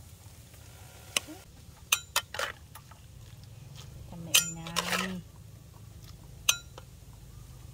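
Large metal spoon clinking against an aluminium pot and a wok as stir-fried noodles are scooped across: a few sharp, ringing clinks spread out, with a brief low voiced sound about halfway through.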